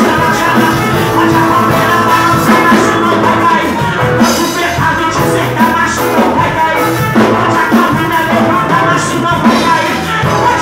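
Loud live gospel worship music: a band with drums playing a steady beat under a singing voice.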